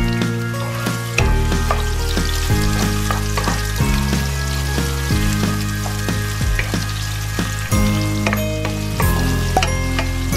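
Sliced red onion and garlic sizzling in hot oil in a nonstick wok as they are sautéed, with a wooden spatula stirring and scraping in short clicks. Background music plays under it, its bass changing about every second and a half.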